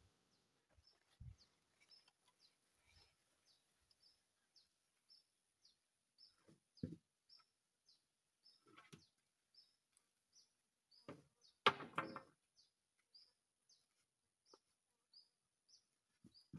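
A bird repeating a short high chirp about twice a second, faint, over a faint high hiss. Now and then wooden knocks as coconut-wood planks are handled, the loudest a clatter about twelve seconds in.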